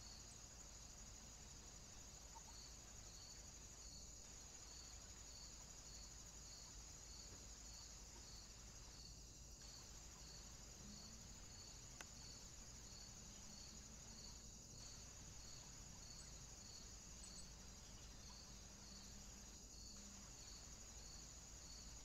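Faint crickets chirping: a steady high trill with a regular chirp repeating about one and a half times a second. There is one faint click about halfway.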